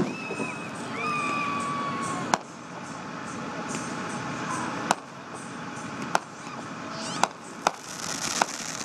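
Aerial fireworks shells going off, about six sharp bangs a second or two apart, with a run of quick crackling near the end.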